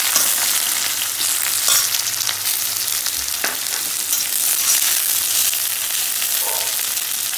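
Sliced onion sizzling in hot oil in a metal kadai, stirred with a spatula, with a few sharp clicks of the spatula against the pan.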